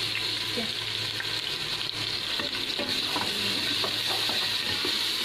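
Sliced onions and ginger-garlic paste frying in ghee in a pressure cooker pot, with a steady sizzle and a wooden spoon stirring and lightly scraping the pot.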